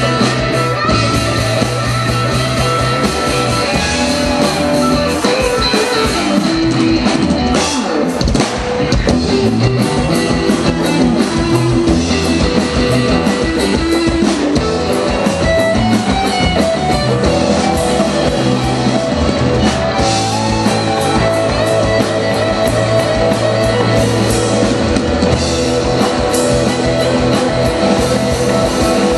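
Live rock band playing: electric guitars, a Les Paul-type and a Telecaster-type, over bass and drum kit, with a guitar line moving up and down over a steady beat.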